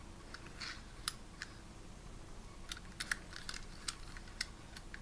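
Faint, scattered clicks and taps of a small die-cast metal toy lorry and its plastic container being turned over in the fingers.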